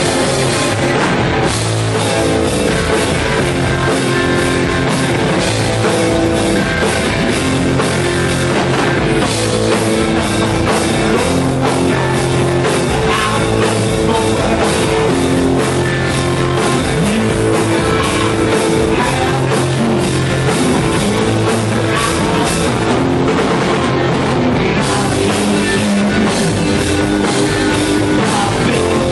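Punk rock band playing loud and steady: electric guitar and drum kit.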